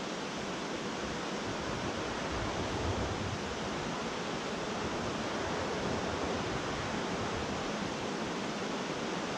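Steady rush of a fast-flowing mountain trout stream running over rocks and riffles.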